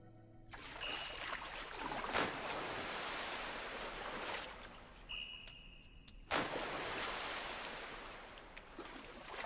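Swimming-pool water splashing and churning as a swimmer strokes through it, with a sudden bigger splash about six seconds in. A short high tone sounds twice over the water.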